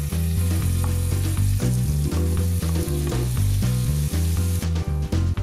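Hot oil in a frying pan sizzling as quartered cherry tomatoes are tipped in onto fried garlic and anchovy, with a few light clicks and stirs; the sizzle drops away near the end. Background music with a steady bass line plays under it.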